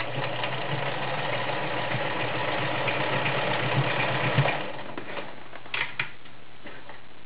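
Kenmore model 1941 sewing machine running a straight stitch: a steady motor hum with a rapid clatter, stopping about four and a half seconds in. A couple of short clicks follow.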